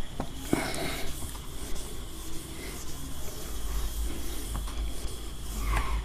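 Whiteboard duster rubbing marker writing off a whiteboard in scratchy wiping strokes, over a steady low electrical hum.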